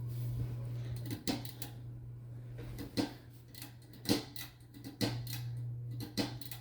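Ceiling fans running with a steady low hum, while sharp clicks sound about five times, roughly a second apart, as pull-chain switches are worked.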